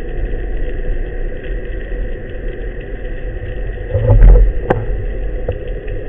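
Underwater background noise picked up through a speargun-mounted camera's housing: a steady low rumble with a faint hum, a louder thump about four seconds in and a sharp click just after it.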